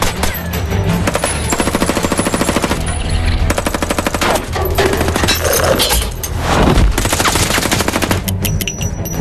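Movie gunfight sound: rapid bursts of automatic rifle fire mixed with single pistol shots, over a low film score. A short lull about three seconds in, and a louder rush of sound around six to seven seconds in.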